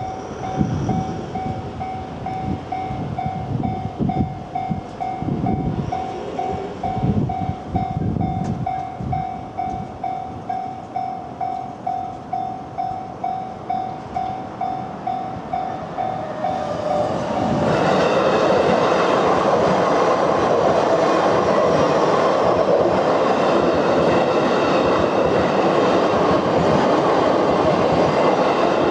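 Japanese railway level-crossing warning bell ringing in even pulses, about one and a half a second, with low thumps in the first ten seconds. About 17 seconds in, an electric train passes close by and its loud, steady running noise drowns out the bell.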